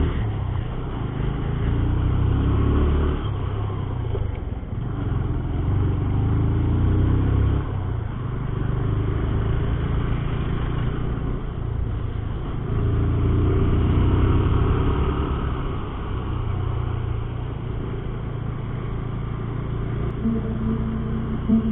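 Motorcycle riding on a road, with a steady low engine and road rumble that swells and eases several times.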